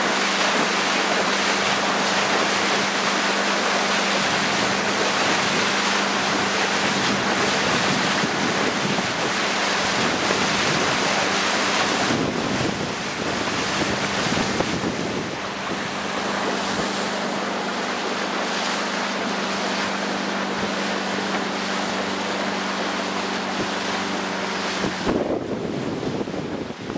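Motorboat running at speed: a steady engine drone under heavy wind buffeting on the microphone and the rush of water from the hull and wake. The engine note fades for a few seconds about halfway through and stops near the end.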